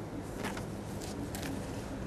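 Hahn's macaw playing and nibbling at a hand: three or four short soft clicks and rustles over a steady low hum.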